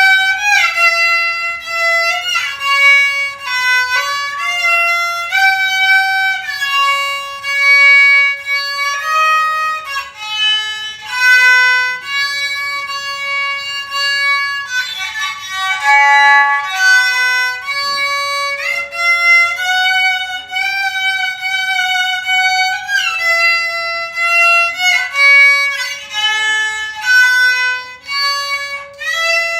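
Kokyu, the Japanese bowed string instrument, playing a solo melody line of held notes joined by short pitch slides.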